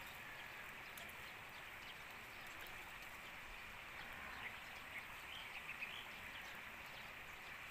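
Faint outdoor ambience: a steady high hiss with a few short, faint bird chirps a little past halfway.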